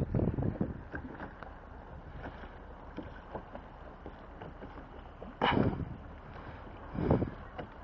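Kayak being paddled on open water: paddle blades dipping and splashing, with water lapping at the hull. Louder splashes come near the start, about five and a half seconds in and about seven seconds in.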